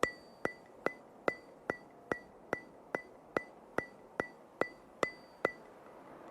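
A steady run of sharp ticks with a short ring, about two and a half a second, like a metronome or wood block; they stop about five and a half seconds in.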